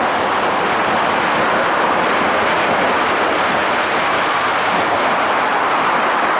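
Osaka Metro 30000-series electric train running past on elevated track as it pulls out of the station, a steady noise of wheels on rails.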